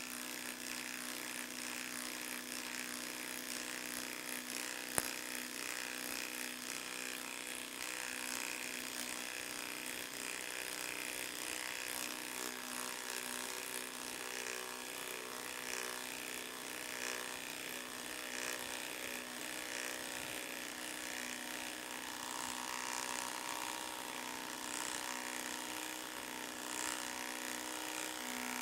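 DeWalt 3/8-inch cordless impact wrench hammering steadily as it drives a six-inch lag screw into a tree stump, with one sharp knock about five seconds in.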